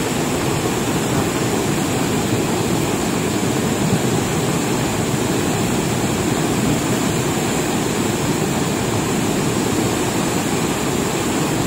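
Cold lahar flood on Semeru: a torrent of muddy water and volcanic debris rushing down the river channel, a steady heavy rushing noise.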